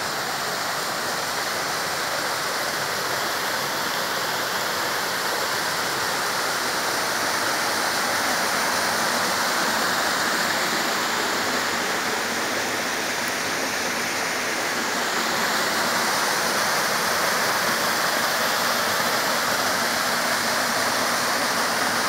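Small waterfall pouring down a rock chute into a pool: a steady rush of falling water.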